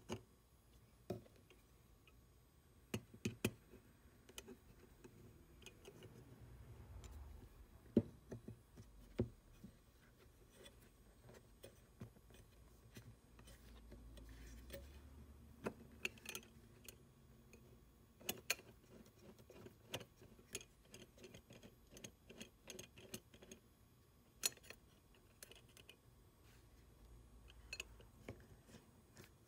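Scattered small metallic clicks and taps as the parts of a cast-iron Stanley No. 220 block plane (iron, lever cap and adjuster) are handled and fitted, with a few sharper knocks among them.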